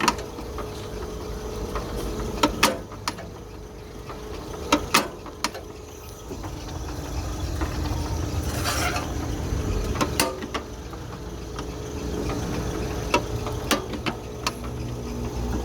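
Five-function punch-and-shear machine (ironworker) running with a steady hum. Scattered sharp metallic clicks and knocks come over it, with a short hiss near the middle.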